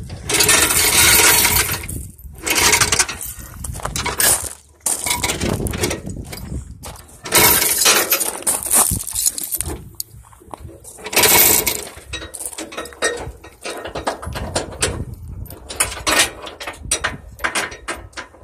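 Rusty steel tie-down chains clinking and rattling irregularly as they are handled, with footsteps crunching on gravel.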